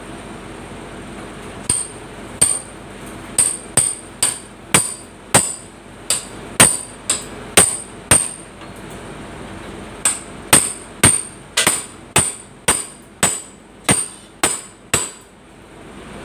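Hammer blows on the sheet-metal fender panel of a bus, knocking it loose for removal: sharp metallic strikes with a ringing tone, about two a second, in two runs separated by a short pause near the middle.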